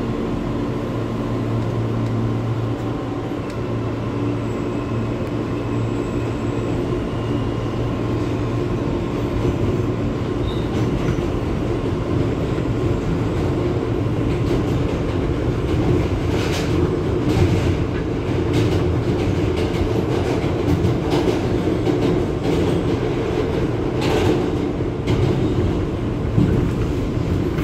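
Interior of a New York City Subway R160 car running through the tunnel: a steady low rumble and motor hum. From about halfway through, intermittent clatter from the wheels on the track joins in.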